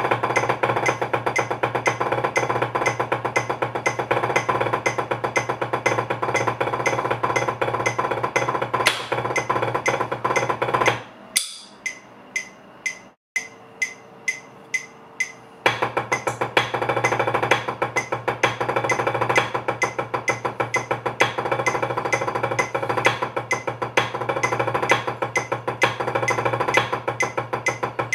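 Wooden drumsticks playing fast rudimental strokes on a drum practice pad. About eleven seconds in the playing breaks off into a few single, separate strokes for several seconds, then picks up again at full speed.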